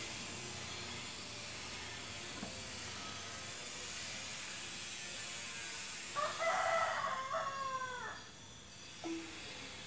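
A rooster crows once, about six seconds in, a call of about two seconds in several parts, over a steady background hiss.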